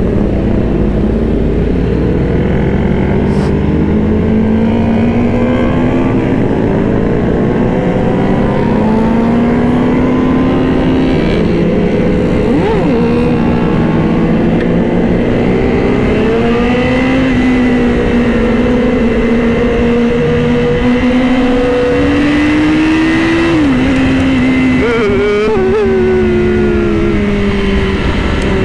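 Honda CBR1000RR-R's inline-four engine running under way, its note rising and falling in pitch as the bike accelerates and eases off, with a sudden drop in pitch late on.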